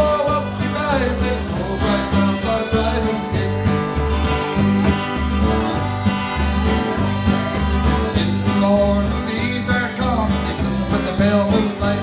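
Live folk band playing an instrumental break between verses: acoustic guitar strumming, button accordion, electric bass and a cajon keeping a steady beat.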